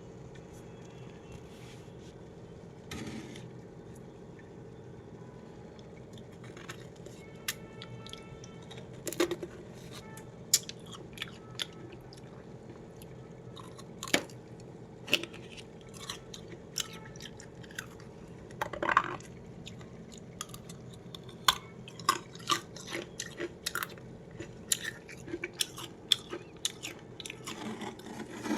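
Crunchy chewing of freezer frost: scattered sharp crunches at an uneven pace, few at first and coming more often from about halfway through, over a steady background hum.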